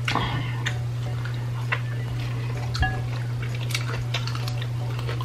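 Sparse light clicks and taps of forks against plates and bowls, with eating sounds, over a steady low hum.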